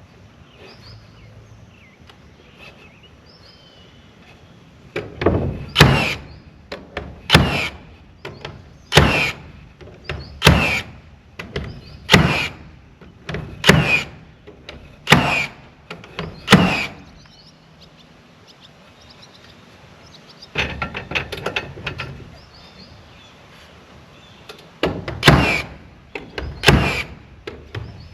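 Hammer blows nailing siding boards onto the barn: sharp, ringing knocks about one every second and a half, starting about five seconds in, with a quick rattle of lighter clicks partway through. Birds chirp faintly at the start.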